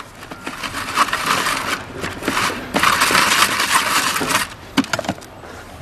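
Dry, coarse-particle fishing groundbait being rubbed by hand through a sieve mesh. It makes a gritty, hissing rustle that comes in strokes and is loudest in the middle.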